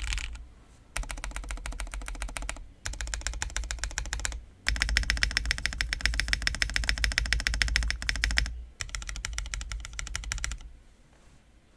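Large stabilized keys on a Bakeneko65 custom mechanical keyboard, with lubed Zaku switches and lubed Cherry clip-in stabilizers, pressed rapidly and repeatedly in four runs with short pauses between them; the third run is the loudest and longest. A clacky, high-pitched keyboard sound.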